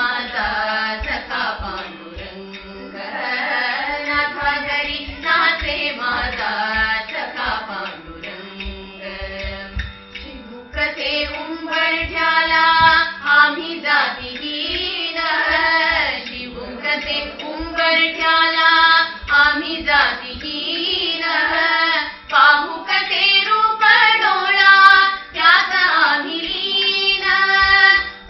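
Women singing a slow Indian devotional song together into a microphone, over a steady low drone.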